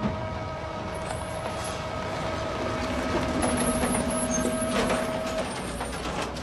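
Fire truck driving past at close range, its engine noise swelling as it goes by, with a steady high siren-like tone that stops about five seconds in.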